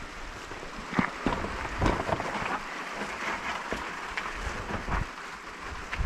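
Rain falling steadily, with irregular knocks and rustles close by.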